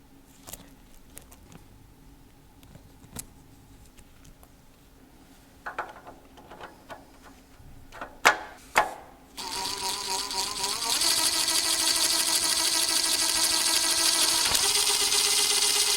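A few faint metallic clicks, then about nine seconds in a small electric motor starts and runs steadily, its pitch wavering and then settling a little lower about a second later.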